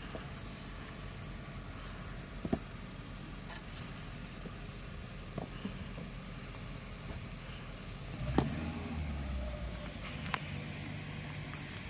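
A jeep's engine idling with a steady low rumble that swells for a second or so about eight seconds in, with a few sharp knocks over it, the loudest about eight seconds in.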